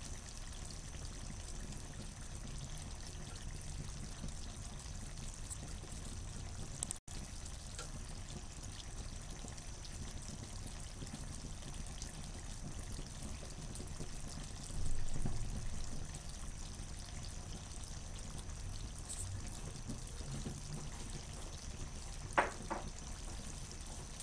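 Chickpeas frying in oil in a nonstick frying pan, giving a faint steady sizzle. There is a brief knock about fifteen seconds in and a sharp click near the end.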